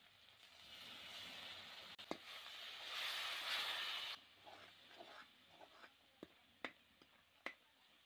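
Spiced onion-tomato masala sizzling in a steel kadai. The hiss builds from about a second in, is loudest between about 3 and 4 seconds, and then cuts off. After that a steel spatula stirs the masala and clinks sharply against the pan a few times.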